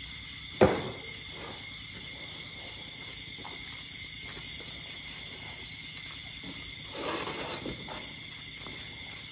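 Steady high chirring of night insects, with a single sharp thump about half a second in and a brief rustle around seven seconds in.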